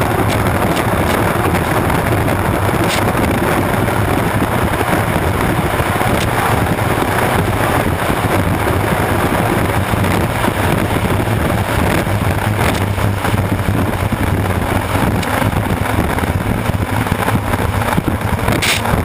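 Unlimited hydroplane's turbine engine running steadily at racing speed, heard from an onboard microphone by the engine exhaust, mixed with heavy wind buffeting and hull spray.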